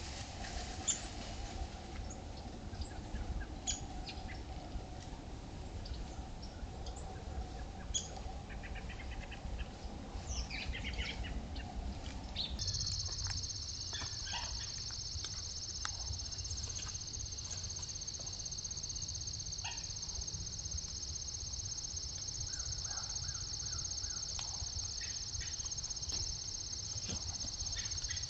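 Outdoor ambience from a trail camera: scattered bird chirps over a low rumble. About halfway through, the sound switches abruptly to a steady high-pitched insect chorus, with occasional chirps on top.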